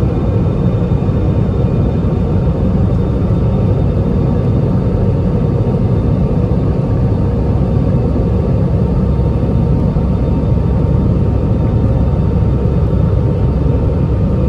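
Steady low rumble of an airliner in flight heard from inside the passenger cabin, with a faint steady high whine above it.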